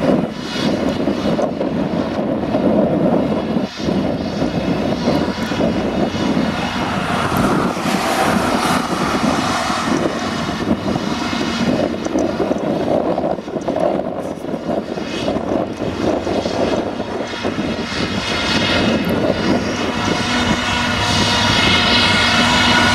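Claas Jaguar self-propelled forage harvester running steadily under load, chopping windrowed grass and blowing it into a trailer alongside. Its engine and chopper noise grows a little louder near the end.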